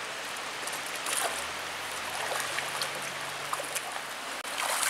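Shallow creek water running over rocks: a steady rushing noise, with a few faint short taps on top of it.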